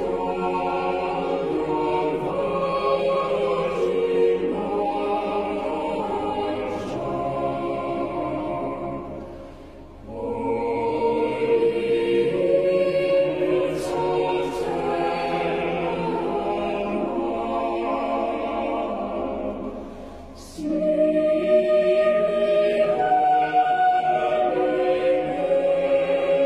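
Choral music: voices singing slow, long-held chords in phrases, fading out and starting a new phrase about ten and twenty seconds in.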